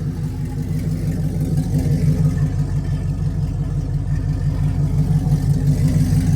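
2009 Pontiac G8 GT's 6.0-litre L76 V8 with long-tube headers running steadily with an even, throbbing pulse. It runs now that an open vacuum-leak hole has been covered; the leak had kept it from running.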